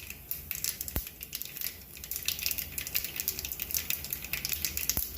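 Mustard seeds crackling and popping in hot oil in a kadai: a dense patter of small pops that grows thicker after about two seconds, with a couple of louder single pops. This is the tempering stage, the seeds spluttering once the oil is hot enough.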